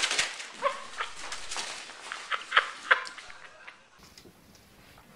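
A pet's short, sharp calls, three close together about two and a half seconds in, after a brief clatter at the start.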